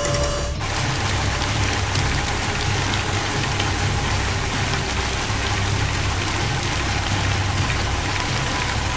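Steady rain-like hiss over a low, pulsing rumble, with no distinct events. A steady tone cuts off about half a second in.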